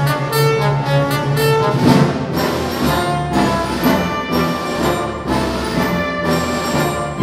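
Symphony orchestra playing: a figure of short repeated notes for about the first two seconds, then a fuller, more sustained passage.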